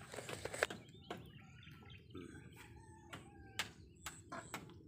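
A rooster crowing, a wavering call lasting about two seconds that starts about a second in, with scattered short clicks and taps around it.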